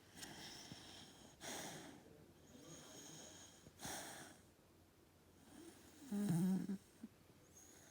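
Fox red Labrador puppy snoring softly in its sleep, a breath in or out roughly every two seconds, with one louder, low-pitched snore about six seconds in.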